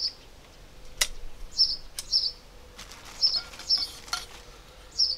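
A small bird chirping over and over, short high chirps mostly in pairs. Two sharp clicks, about one and two seconds in, come from the metal backdrop-stand pole being handled.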